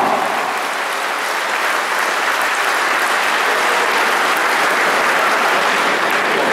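Arena crowd applauding the announced knockout winner: a steady, dense clapping.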